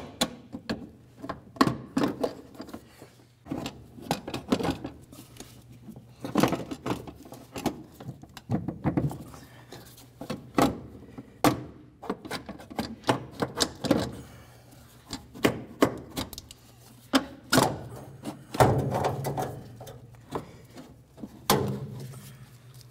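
Metal wiper transmission linkage being twisted and worked out of the cowl opening by hand, clunking and knocking irregularly against the body and motor mount. A low steady hum runs underneath.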